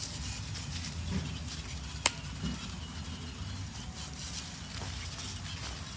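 Garden hose spray hissing steadily as the water patters onto the plastic toy helicopter seesaw. A single sharp click comes about two seconds in.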